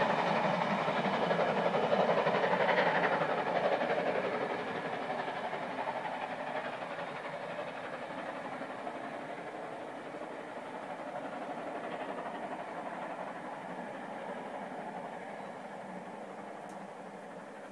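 Steam-hauled passenger train behind GWR King class 4-6-0 No. 6024 King Edward I running away into the distance. The sound of the train and its locomotive fades steadily throughout.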